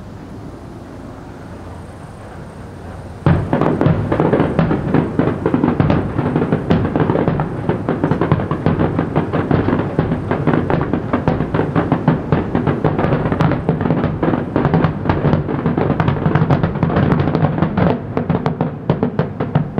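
Fireworks finale barrage: after a few seconds of low background noise, a dense volley of aerial shell bursts starts suddenly about three seconds in and keeps going as rapid, overlapping bangs.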